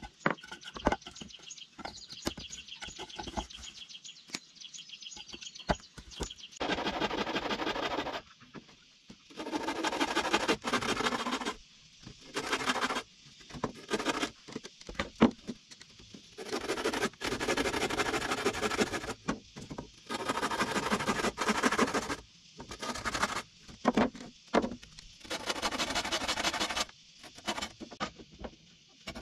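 Birds chirping, then wood being worked with a hand tool in repeated scraping strokes, each lasting a second or more with short pauses between.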